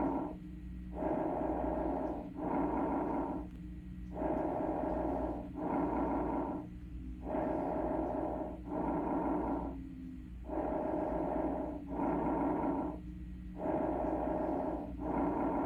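Normal bronchovesicular breath sounds, pitched between bronchial and vesicular breath sounds, with inspiration and expiration about equal in length. About five breaths come at a steady rhythm of roughly one every three seconds, each a two-part whoosh followed by a short pause. These are the normal sounds heard over the parasternal and parascapular areas.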